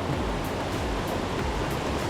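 Steady rush of fast-flowing, rain-swollen water, with background music and a soft regular beat faintly underneath.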